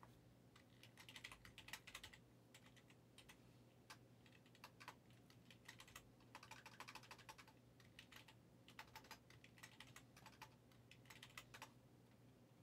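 Faint computer keyboard typing in several short bursts of rapid key clicks, with pauses between them, over a low steady hum.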